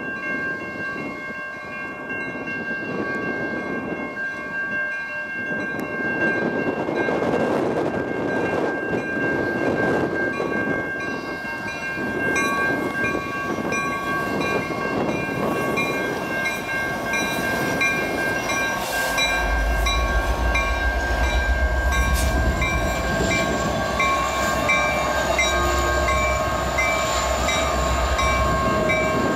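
Railroad grade crossing signal bell ringing steadily as a diesel train approaches, with the low rumble of the locomotive engine growing strong as it passes the crossing about two-thirds of the way through.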